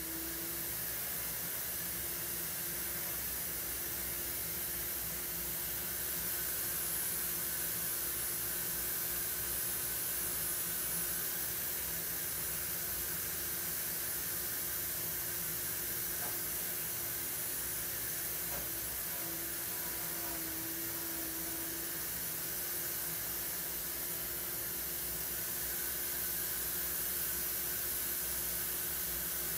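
Steady, even background hiss of room noise, with a faint low hum under it.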